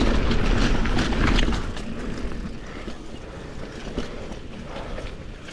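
Mountain bike ridden along a dirt trail: tyre noise and rattling clicks from the bike under a low rumble of wind on the microphone, loudest for the first second or two, then easing off.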